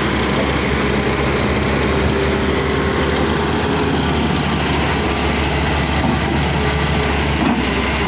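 Tata Hitachi 470 hydraulic excavator's diesel engine and hydraulics running under load with a steady drone as the machine swings its boom back from the truck.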